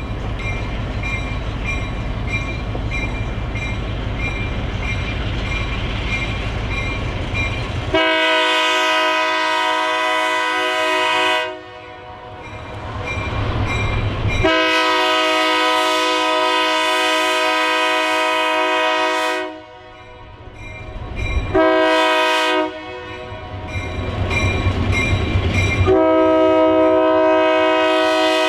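Diesel locomotive's engine rumbling, then its air horn sounding the grade-crossing signal: two long blasts, a short one, and a long one still sounding at the end, the signal for a train approaching a road crossing.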